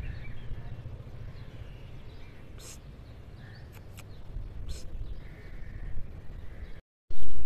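A few short, harsh crow caws now and then over a steady low outdoor rumble, with a few sharp high clicks or chirps in the middle. The sound cuts out briefly near the end.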